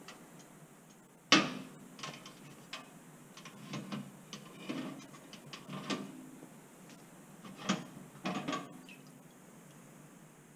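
Small metal parts clinking and knocking against the inside of a metal can as gloved hands fish them out of an acetone soak. A sharp knock about a second in is the loudest, followed by a scatter of lighter clinks and scrapes.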